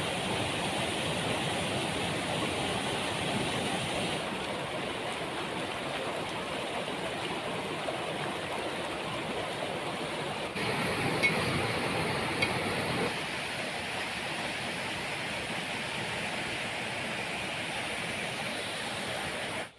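Waterfall rushing in a steady, dense roar of falling water. The sound shifts slightly about ten seconds in, with two short ticks soon after.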